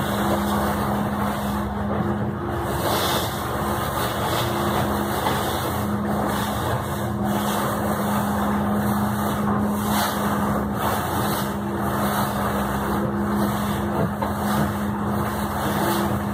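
Olga 28 trawler's engine running steadily underway, heard inside the pilothouse: a constant low hum over the rush of water and wind.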